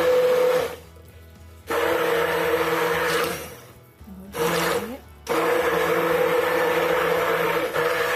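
Handheld electric immersion blender running in a jug of soap oils and cornstarch, switched on and off in bursts: a short run stopping under a second in, another of about a second and a half, a brief one with a rising whine as it spins up, then a steady run through the last few seconds. This is the oils being blended smooth before the caustic soda goes in.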